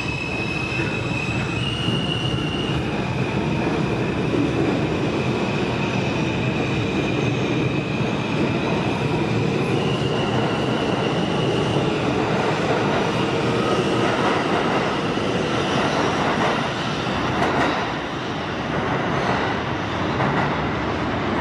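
New York City subway train running on the rails, its wheels squealing in high steady tones through roughly the first half. A few sharp clicks of wheels over rail joints come near the end.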